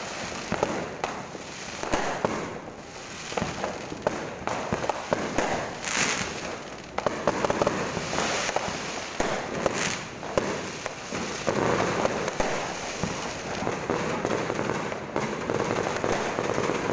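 Many fireworks going off around the neighbourhood: aerial shells bursting and firecrackers popping in rapid, overlapping bangs and crackles, with a couple of brief hisses about six and ten seconds in.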